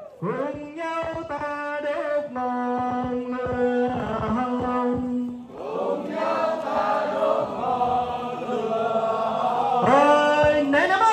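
A group of voices chanting together in a slow melody, with long held notes between phrases.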